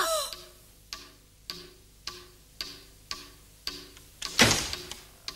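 Steady clock-like ticking, about two ticks a second, each tick a sharp click with a short low note. About four and a half seconds in there is one loud whoosh.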